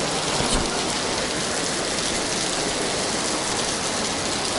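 Steady rain falling on a wet paved street.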